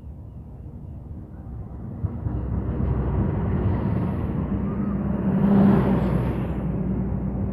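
Diesel-electric locomotive (Indonesian GE CC206) running in along the platform with its passenger train, its engine drone growing steadily louder as it comes alongside and peaking about five and a half seconds in.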